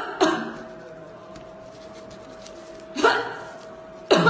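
A woman coughing in sudden harsh bursts: two in quick succession at the start, another about three seconds in and one more near the end, over a faint steady hum. The cough is presented as that of a patient infected with the coronavirus.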